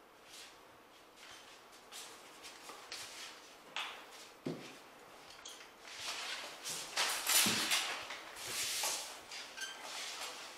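Paper drywall tape rustling and scraping as it is handled and pressed onto a mudded seam, with a few soft knocks; the rustling grows louder in the second half.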